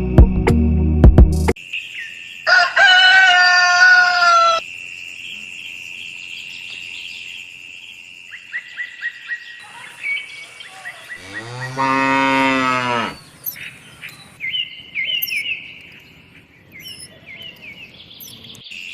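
A cow moos once, one long deep call lasting about two seconds near the middle, over a farmyard background of bird chirps and a higher-pitched animal call early on. Music cuts off a second or two in.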